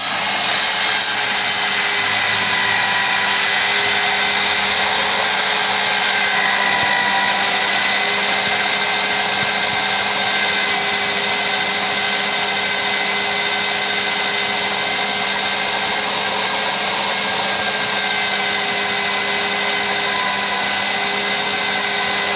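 Walkers WHD26DG2 electric impact drill running continuously at a steady speed, its motor giving a constant whine.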